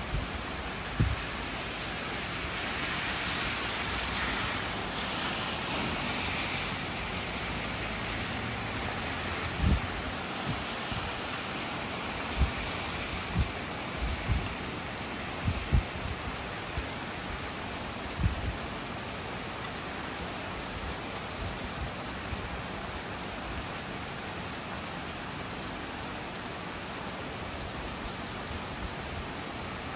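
Steady rain pouring down onto a street and trees in a storm, a dense even hiss. A string of short low thumps comes through between about ten and eighteen seconds in.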